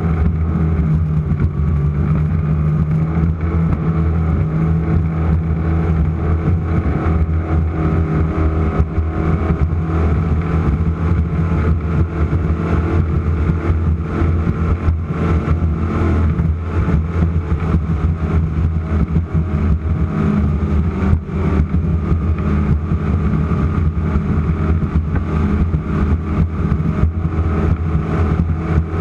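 Offshore race boat's engines running hard at a steady pace, a loud even drone with many short knocks and rattles through it.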